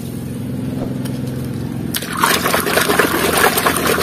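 Water splashing and sloshing in a tub as a hand swishes through it, starting about two seconds in. Under it, a low steady hum.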